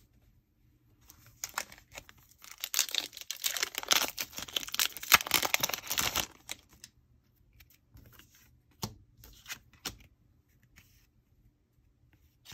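Foil trading-card booster pack being torn open and crinkled, a dense crackle lasting about five seconds, then a few faint ticks.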